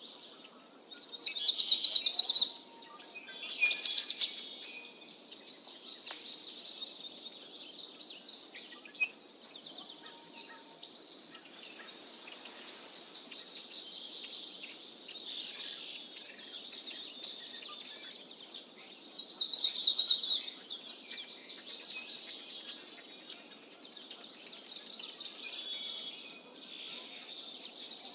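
Several songbirds singing and chirping together in a continuous mix of rapid trills and twitters, with a loud burst of song about two seconds in and another around twenty seconds.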